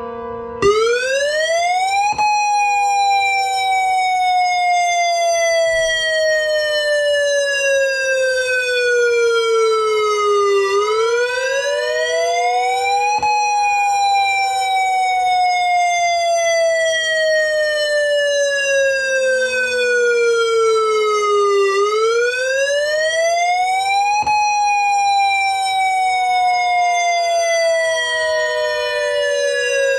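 Simulated outdoor warning sirens: an electronic Ion Pathfinder siren starts the wailing attack signal about half a second in, its pitch sweeping up quickly and sliding slowly down, about every eleven seconds. Beneath it a steady alert tone from the other sirens holds.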